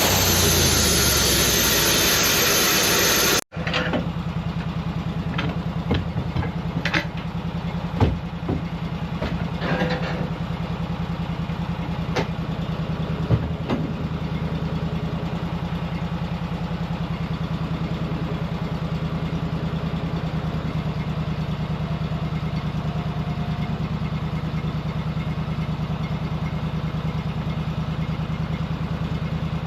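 Loud steady sawing noise of the sawmill blade cutting spruce, which stops abruptly about three and a half seconds in; then an engine idling steadily, with a few sharp knocks and clunks over the next ten seconds.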